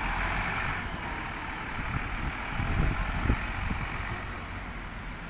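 Road traffic: a bus engine fading as it moves away, leaving a steady traffic hum, with a few low rumbles about three seconds in.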